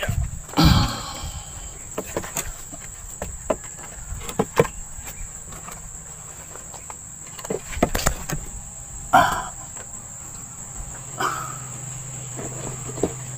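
Insects chirring as a steady high-pitched drone, with scattered short knocks and rustles. The loudest are two brief bursts, about a second in and near the middle.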